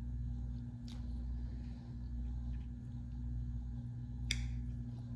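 A steady low hum in the room, with two faint clicks about three seconds apart.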